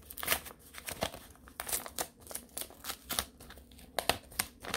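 Paper envelope being torn open by hand: a run of short crinkling rips and rustles of paper.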